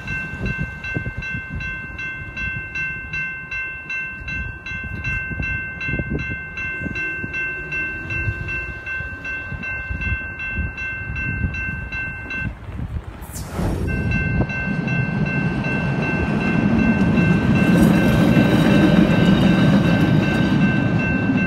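Safetran Type 2 electronic crossing bell ringing with a rapid, steady ding. About two-thirds through, a sudden loud whoosh cuts across it. Then a CTA electric rapid-transit train rumbles up and into the crossing, growing louder toward the end.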